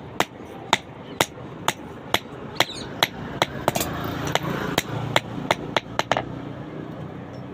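Blacksmith's hammer striking metal, about two sharp ringing blows a second, which stop about six seconds in.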